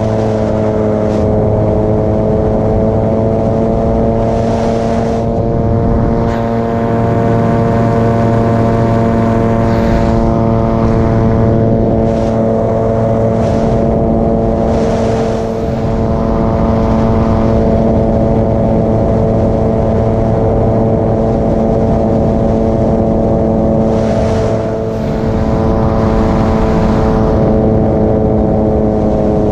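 Paramotor engine and propeller running steadily at cruise, its pitch dipping and rising slightly a few times with the throttle.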